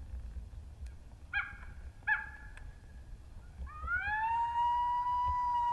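Coyote howl played on a predator call: two short yips, then a long howl that rises about four seconds in and holds a steady pitch.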